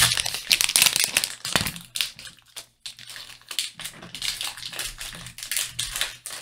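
Foil wrapper of a Pokémon trading-card booster pack crinkling and rustling as it is handled and the cards are pulled out, loudest in the first two seconds. Then quieter shuffling and sliding of the cards as they are gathered and fanned out.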